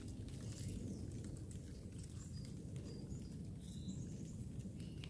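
Outdoor ambience: a low, steady rumble on the microphone, with a few faint, brief bird chirps around two and a half and four seconds in.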